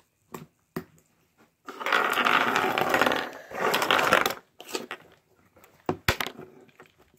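Handling noise from the recording phone as it is grabbed and moved, with fingers rubbing over its microphone. There are two stretches of loud rustling starting about two seconds in, and a few short clicks and taps around them.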